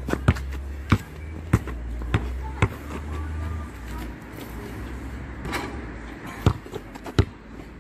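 A basketball bouncing on paved ground: five evenly paced dribbles, under two a second, then a few scattered thuds near the end, over a low steady rumble.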